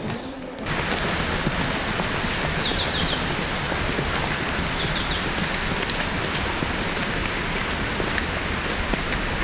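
Steady rushing of flowing water, like a nearby stream, starting just under a second in. Brief high chirps come twice.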